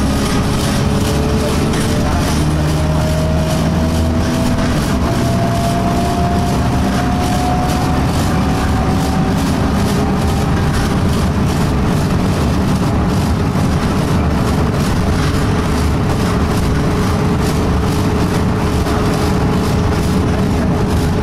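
Inside an Alexander Dennis Enviro200 single-deck bus on the move: steady engine and road noise, with a whine that rises slowly in pitch over the first half as the bus gathers speed. Running through it is the annoying vibration sound of the bus.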